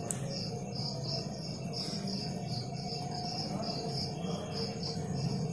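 Cricket chirping in a steady high-pitched pulse, about three to four chirps a second, over a low steady hum.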